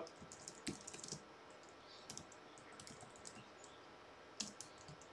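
Faint, irregular keystrokes on a computer keyboard, a few keys at a time, with one slightly louder tap near the end.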